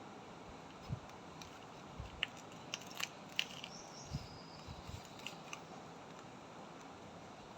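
Indian ringneck parrot chewing, with a dozen or so scattered small crunches and clicks at irregular intervals.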